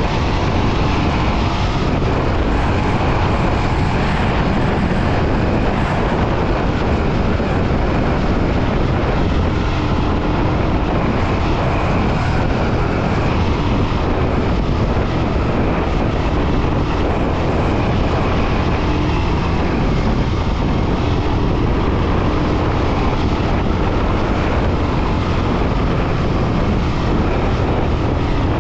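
Royal Enfield Himalayan 411's single-cylinder engine running steadily while the motorcycle is ridden, mixed with a dense rush of riding noise at an even level.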